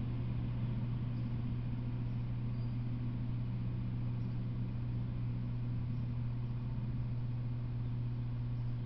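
A steady low hum over a faint hiss.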